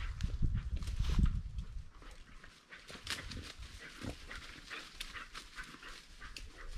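Dry leaves and twigs rustling and crackling in irregular bursts as a hunting dog and the hunter push through leaf litter and brush. A heavier low rumble runs through the first two seconds.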